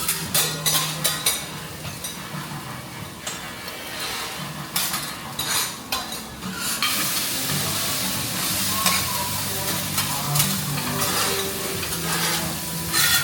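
Vegetables frying in wagyu fat on a teppanyaki griddle, with metal spatulas clacking and scraping on the hot plate as they are tossed. The clacks come thick in the first half; after that the sizzle goes on as a steady hiss with only occasional taps.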